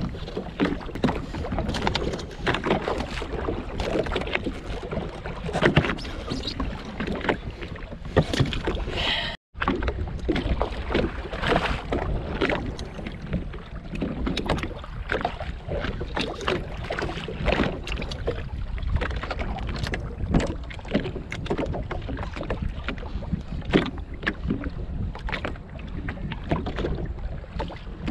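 Water slapping and lapping against the hull of a drifting Sea-Doo GTX jetski, with wind buffeting the microphone. The sound cuts out for a moment about nine seconds in.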